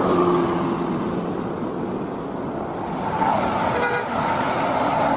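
Large coach bus running and moving off, with engine and road noise throughout and a short horn toot near the start.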